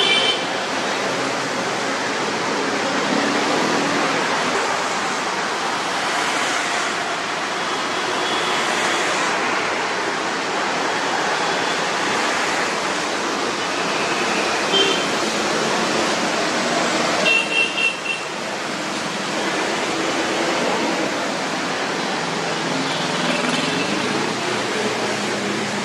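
Heavy road traffic on a rain-soaked road: a steady hiss of tyres on wet asphalt mixed with bus, car and scooter engines. A few short vehicle horn beeps sound now and then.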